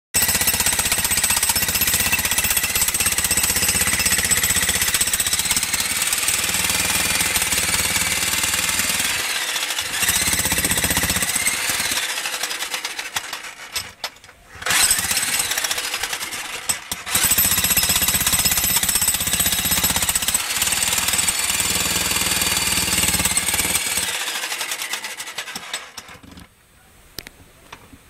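Handheld demolition hammer (jackhammer) chiselling into concrete and stone, running in long hammering bursts. It eases off and pauses briefly about halfway through, pauses again soon after, and stops a couple of seconds before the end, leaving a few faint clicks.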